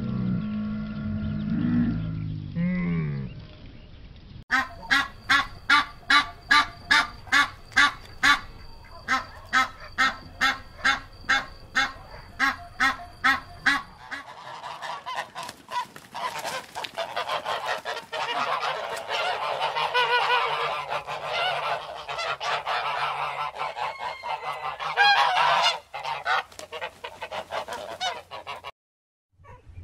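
A dromedary camel's low groaning grumble for the first few seconds, then greylag geese honking: first a run of evenly spaced honks about two a second, then many overlapping honks at once.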